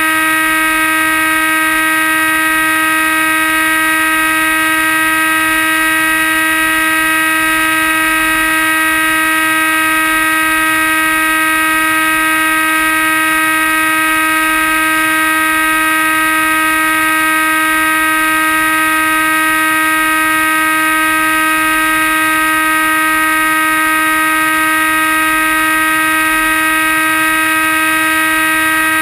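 RC plane's motor and propeller running at full throttle, a loud steady whine with an even pitch, heard from a camera mounted on the airframe.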